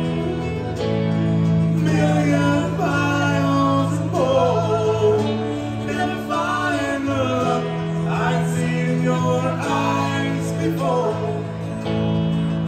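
Live acoustic country music: an acoustic guitar keeps steady chords under a wavering fiddle melody.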